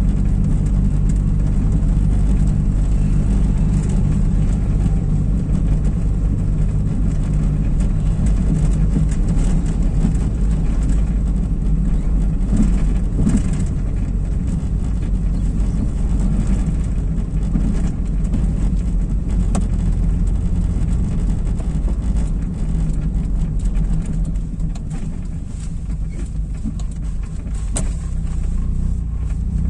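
Car engine and road noise heard from inside the cabin while driving on brick-paved streets: a steady low hum that eases off about three-quarters of the way through, then starts to rise in pitch at the very end as the car speeds up again.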